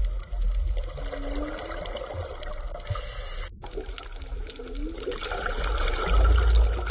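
Underwater ambience: a steady wash of water over a low rumble, with two short gliding moans, one about a second in and one past the middle. There is a split-second dropout midway.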